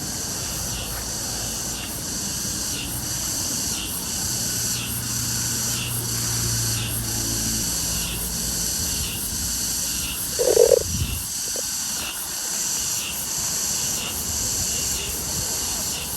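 Insects buzzing in a high, steady chorus that swells about once a second. About ten seconds in comes one short, louder sound.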